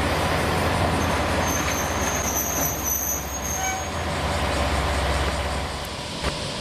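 Diesel railcar of the KiHa 40-series type idling at the platform, a steady low engine hum with a thin high whine over it for a couple of seconds. The hum stops near the end.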